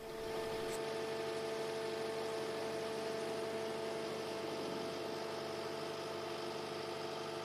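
Menzi Muck M545 hydraulic excavator running: a steady, level hum of engine and hydraulics with a few held tones, fading in over the first half second.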